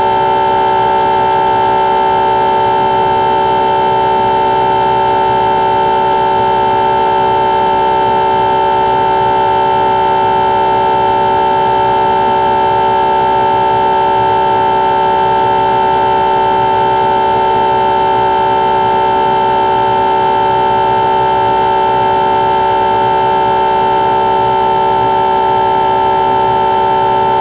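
Single electric motor and propeller of an E-Do Model SkyEye plane, picked up by its onboard camera: a loud, steady whine that holds one pitch throughout.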